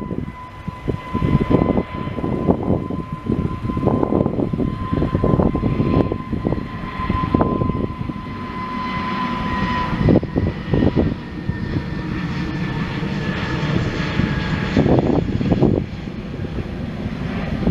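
Airbus A320neo's two CFM LEAP-1A engines at takeoff power as the airliner rolls down the runway: a steady engine whine over a low rumble, the whine dropping slightly in pitch from about ten seconds in as the aircraft passes. Gusty wind buffets the microphone throughout.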